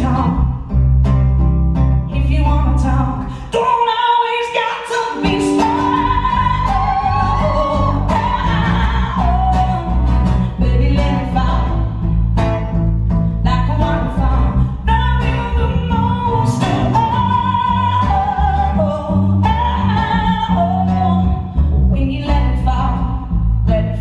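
Live band performance of a pop-rock song: a woman singing over strummed acoustic guitar, electric guitar and a steady bass. The bass drops out briefly about four seconds in, then the full band comes back in.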